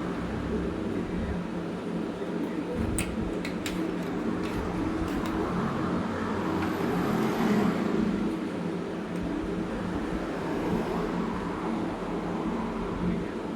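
Aluminium TIG welding: a steady electrical buzz with an even hum over a hiss, as from an AC welding arc, with a few sharp clicks about three to five seconds in.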